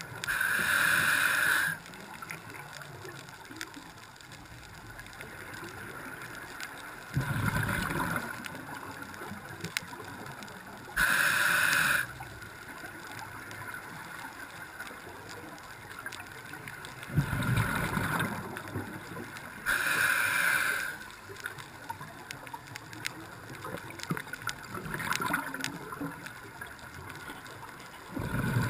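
Scuba diver breathing through a regulator underwater. A loud hissing inhalation of a second or so comes near the start, about ten seconds in, and about twenty seconds in. Each alternates with a lower, bubbling exhalation rumble, over a steady underwater wash.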